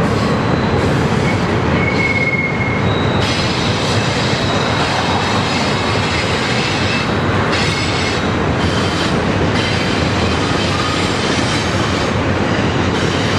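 Double-stack intermodal freight cars rolling steadily across a steel truss bridge, a continuous rumble of wheels on rail. Thin, high wheel squeals come and go over it.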